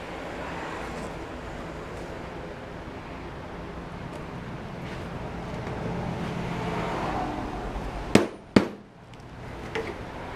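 Schedule 40 PVC pipe and fittings being handled and pushed together, with a rubbing, scraping sound that swells about six seconds in. Then two sharp knocks about half a second apart, followed by a few faint clicks.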